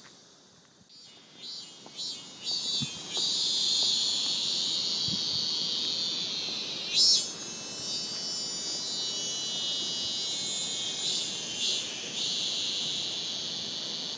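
A steady, high-pitched, insect-like hiss of background ambience. It rises about a second in and swells louder about seven seconds in.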